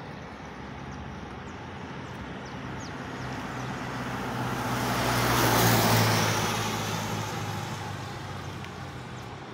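A vehicle passing on a rain-wet road: tyre hiss on the wet asphalt swells to a peak a little past halfway and fades away, over a low engine hum.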